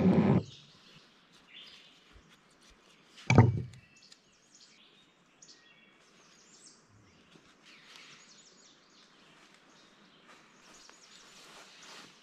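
Faint songbird chirps over quiet woodland background, with one loud short thump about three seconds in. At the very start, a falling tone from a travel French press plunger being pushed down fades out.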